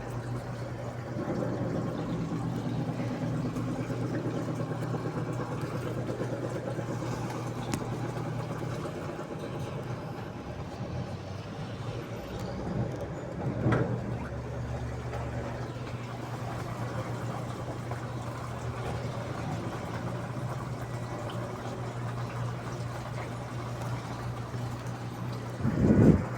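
Daewoo washing machine running in its rinse cycle: a steady motor hum with water sloshing in the drum, and two louder swishing surges, one about halfway and one at the end.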